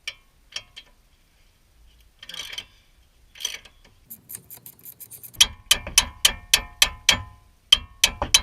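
Hand ratchet wrench clicking as it backs out the brake caliper bracket bolts on a wheel hub. After a few scattered clicks and rustles, a fast run of sharp clicks starts about five seconds in, at about four a second.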